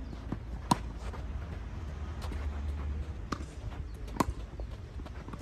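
Tennis balls struck by rackets in a doubles rally: sharp pops, the loudest less than a second in and about four seconds in, with another just after three seconds and fainter ones between, over a low steady rumble.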